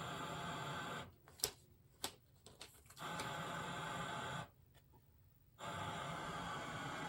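Steady static hiss from the TV fed by a faulty Panasonic DVD-VCR recorder, cutting out twice: for about two seconds from about a second in, with a few sharp clicks in the gap, and again for about a second later on. The static coming and going is a sign of the unit's fault.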